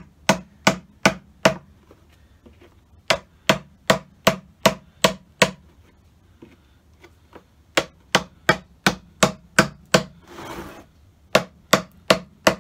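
A wood chisel being struck repeatedly as it cuts into the edge of an old wooden hive box: sharp strikes at about three a second, in four runs with short pauses between them. A brief scraping sound comes a little after ten seconds.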